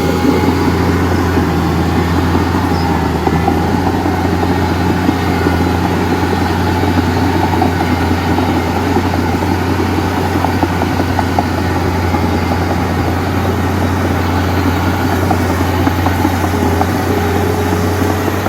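Heavy diesel machinery engine running steadily, a deep hum under a constant rattle and clatter.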